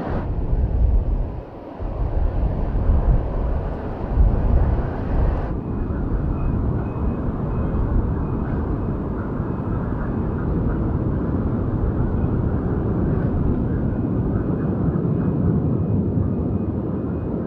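Boeing 787-8 Dreamliner's jet engines running, a steady rush of noise heard from the ground. The low rumble is uneven for the first five seconds, then the sound settles.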